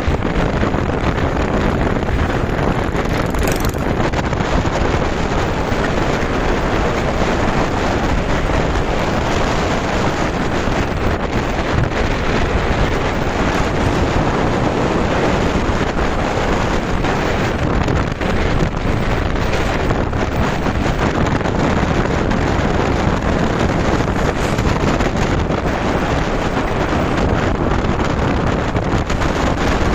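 Motorcycle running on the move, largely covered by steady wind buffeting on the microphone.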